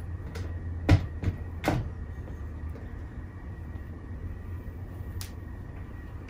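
Handling of a flat iron being worked through a mannequin's hair: a few short clicks and knocks about one to two seconds in, the first the loudest, and one more near the end, over a low steady hum.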